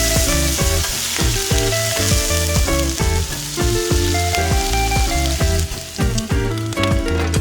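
Food sizzling as it fries in a pan, a steady crackling hiss, with background music playing over it.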